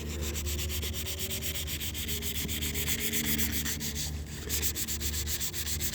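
Sandpaper rubbed by hand over a van's molded fender flare in rapid back-and-forth strokes, with a brief pause about four seconds in. The paper is 400 grit, used for smoothing out the flare by hand.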